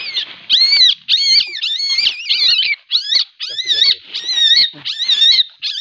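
A juvenile Asian palm civet giving a rapid series of high, arching squealing calls, about two a second. These are aggressive, agitated calls.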